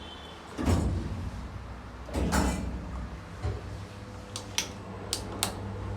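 Elevator doors sliding and thudding twice. About halfway through, a low steady hum starts, and near the end come four sharp clicks.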